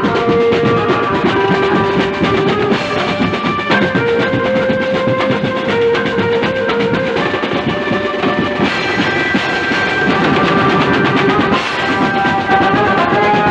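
Procession street band playing: drums beat a fast, dense rhythm under a held melody whose notes change every second or two.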